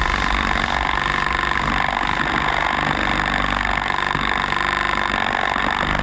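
Electronic dance music, held on sustained synth tones with the deep bass and kick dropped out.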